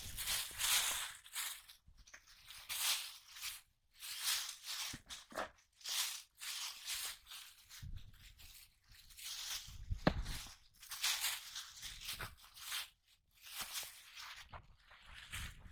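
Thin plastic bag crinkling and rustling in irregular bursts as it is handled, with a few low thumps around the middle.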